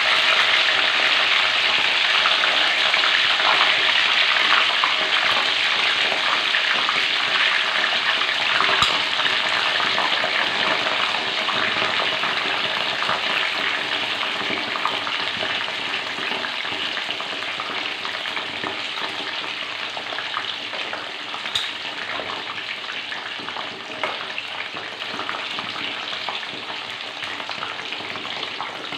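Hot oil sizzling steadily in a wok as leaf-wrapped ketupat palas deep-fry, the hiss slowly dying down. Two sharp clicks, about nine seconds in and again about twenty-two seconds in.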